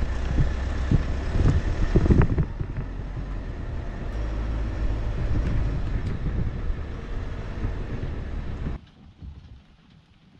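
An engine running steadily, with wind on the microphone and a few knocks in the first two seconds; it cuts off abruptly about nine seconds in.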